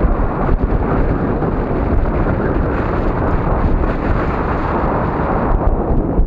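Wind buffeting the microphone: a steady, loud rushing noise, with a few faint ticks.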